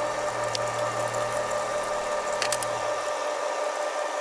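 Breaded asparagus spears deep-frying in a pan of hot oil: a steady crackling sizzle, with a couple of light clicks of chopsticks against a metal draining tray. A low hum underneath stops about three seconds in.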